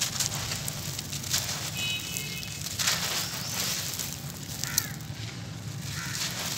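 Dry, gritty cement mix being crumbled by hand, the loose grains pouring down onto cement slabs with a steady hiss and many small crunches.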